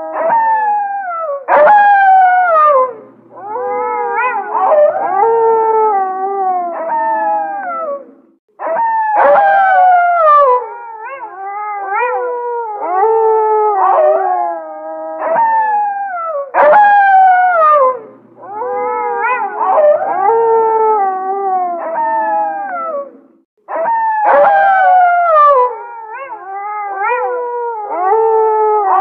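A pack of gray wolves howling in chorus: several long howls overlapping, each gliding and falling in pitch, with short breaks between bouts. The same passage repeats about 15 seconds apart, as a loop.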